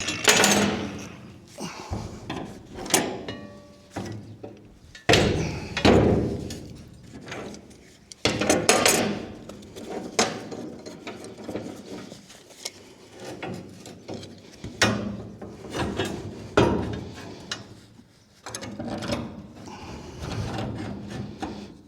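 Irregular scraping and knocking from hand work with tools and material, in uneven strokes with short pauses between.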